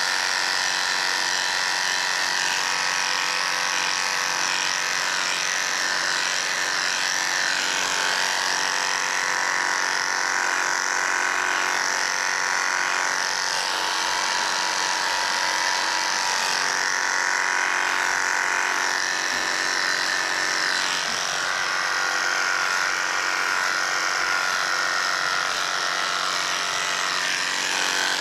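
Electric pet hair clippers running with a steady buzz, clipping a cat's fur.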